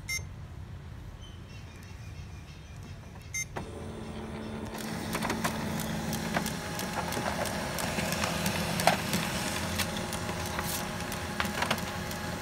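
Two short beeps from the HP LaserJet Pro MFP M227fdw's touchscreen, then, about three and a half seconds in, the printer's mechanism starts with a steady hum and a growing clatter of clicks and rattles. This is the loud noise the owner is checking as the printer's fault.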